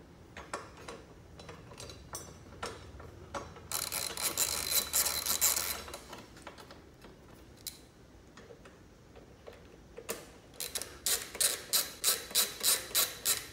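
Hand ratchet clicking as bolts are turned: scattered clicks, a longer rasping run about four seconds in, and near the end a steady series of loud clicks about four a second.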